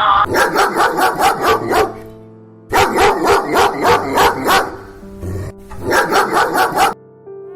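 Dog barking in three quick runs of rapid barks, about five a second, over steady background music.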